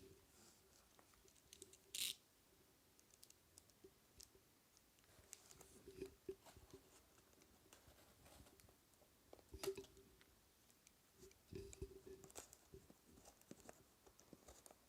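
Faint handling noises of a cardboard parcel being opened: scattered clicks, rustles and tearing, with a sharper rip or snip about two seconds in and another near ten seconds.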